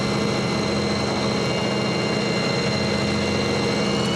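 Fishing boat's engine running steadily, with a steady high whine over it.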